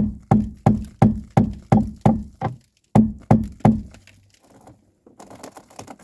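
Hammer striking an old wooden floor beam in quick, even blows, about three a second, with a short pause before three more, to knock the nailed beam loose. Faint scraping follows near the end.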